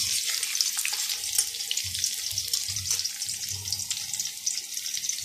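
Sliced onions frying in hot oil in a steel kadai: a steady crackling sizzle.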